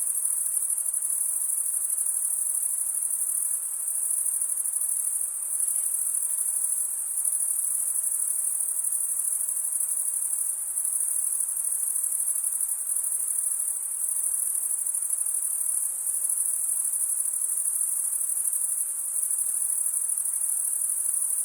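Rainforest insect chorus: a dense, high-pitched drone that holds steady with slight pulsing, over a fainter, lower hiss.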